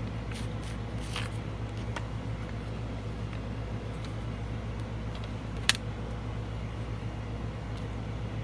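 Steady low hum of an air conditioner running. A few faint clicks and rustles sound early on, and one sharp click comes about two-thirds of the way in.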